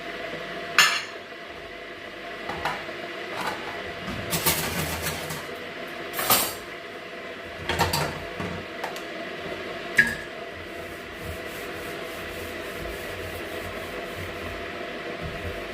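Kitchen handling sounds during cooking prep: a few sharp knocks and clinks of pots or utensils and short scraping or rubbing noises over a steady background hum, stopping after about ten seconds.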